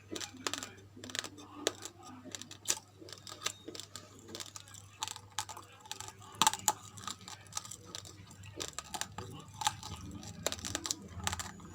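Raw uncooked rice grains being chewed close to the microphone: a quick, irregular run of sharp crunches and cracks.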